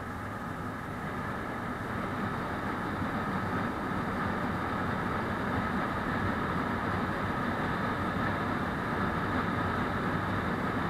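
Motorcycle engine running steadily on the move along a road. It gets a little louder about two seconds in.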